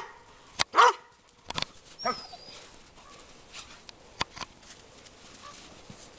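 A dog barking: one loud bark just under a second in, then a shorter, higher bark about two seconds in, followed by a few sharp clicks.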